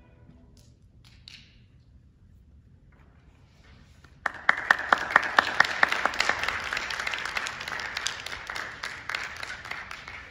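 After a few seconds of hush, the audience starts applauding suddenly about four seconds in. A few loud, evenly spaced claps close by stand out at first, and the applause thins near the end.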